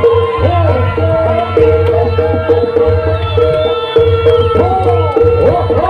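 Live jaranan accompaniment: kendang hand drums with strokes that swoop up and down in pitch, over a steady held tone and a low bass, played without pause.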